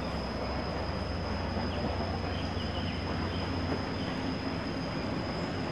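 Steady outdoor background noise: a low rumble with a continuous thin high-pitched whine over it, and a few faint chirps near the middle.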